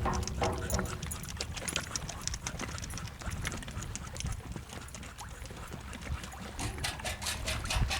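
Wind rumbling on the microphone, with scattered clicks and taps throughout and a quick run of about five clicks a second near the end.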